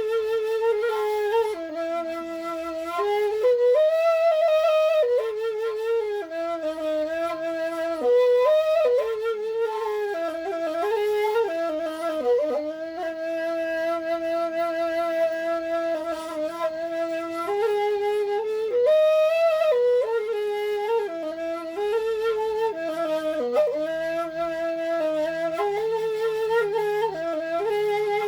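A single Balinese suling, a bamboo flute, playing a slow melody with wavering held notes and quick ornamental turns between them.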